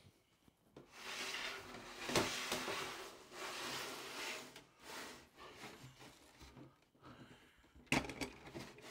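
A plastic tub with a snap-on lid being handled: rustling and scraping, a sharp knock about two seconds in as it is set on a wooden table, and a sharp snap near the end as the lid is pulled off.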